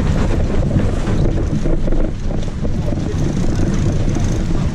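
Wind buffeting the microphone aboard a sailboat under sail: a steady, loud, low rumble.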